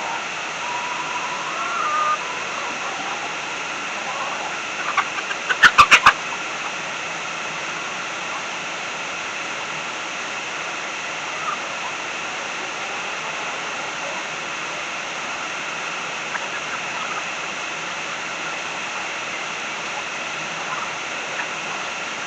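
A fence being opened: four quick, sharp rattling knocks about six seconds in, over a steady background hiss.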